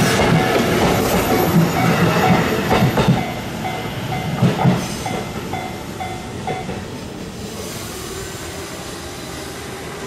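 JR East E233-series electric train running past over a level crossing, its wheels clacking over rail joints, then fading away after about three seconds. The crossing's warning bell keeps ringing in a quick even rhythm and stops about seven seconds in.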